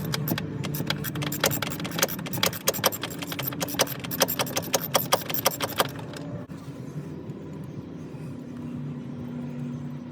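Ratchet clicking in quick runs as the freshly broken-loose oil filter is spun off with a filter socket, stopping about six seconds in.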